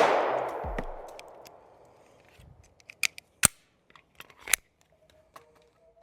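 A 9mm Glock 19 pistol shot right at the start, its report echoing and fading away over about two seconds, then a few light sharp clicks.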